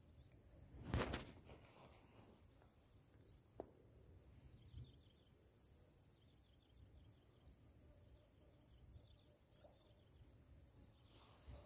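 Mostly quiet marsh ambience: faint bird chirps and a steady high hiss, broken by a brief loud rustle about a second in and a single sharp click a few seconds later.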